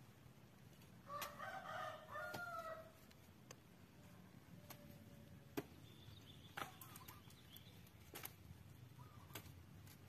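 A rooster crowing once, faint, about a second in, in a single call of about a second and a half that rises slightly at the end. Later there are a few sharp clicks or taps, the loudest about halfway through, over a near-silent background.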